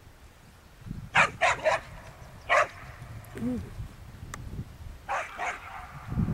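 A dog barking: three quick barks about a second in, a single bark a little later, then two more near the end.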